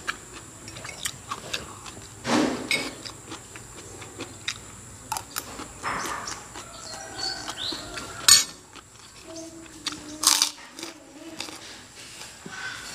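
Metal spoon and fork clinking and scraping on a ceramic plate while eating fried rice, in scattered sharp clicks with a few louder knocks.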